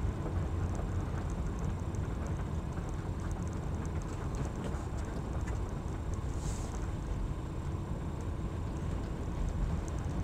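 Low, steady rumble of a car's engine and tyres heard inside the cabin while driving slowly on a wet street, with faint light ticking throughout and a short hiss about six and a half seconds in.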